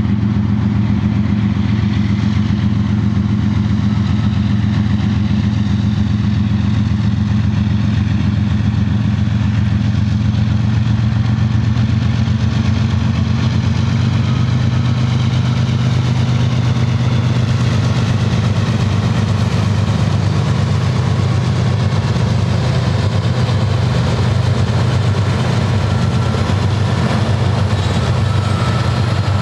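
Union Pacific GE diesel-electric locomotives at the head of a coal train running under power as they pass close by, with a steady low engine drone. From about halfway on, the rumble of the coal hoppers' steel wheels on the rail joins in.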